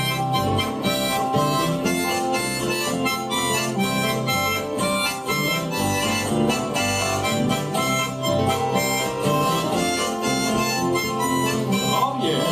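Harmonica solo on an instrumental break of an old-time folk song, played over strummed acoustic guitars keeping a steady rhythm.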